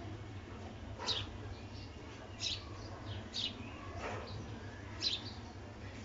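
Peach-faced lovebird giving short, high chirps, about five of them roughly a second apart, each a quick downward sweep, as it nibbles at a person's fingers.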